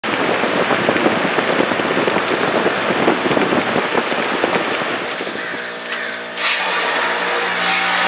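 Carrier WeatherMaker 50TCQD rooftop heat pump going into defrost: a rough, crackly noise, then a steady compressor hum from about five seconds in, with two short hisses of refrigerant near the end as the reversing valve shifts.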